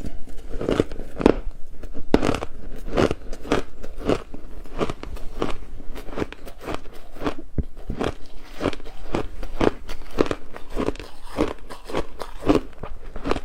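Close-up crunching of ice being bitten and chewed: a steady run of crisp crunches, about two to three a second.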